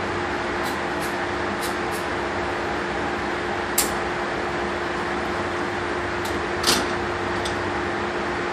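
Steady fan-like hum with a constant low tone, broken by a few short sharp clicks; the two loudest come about four and seven seconds in.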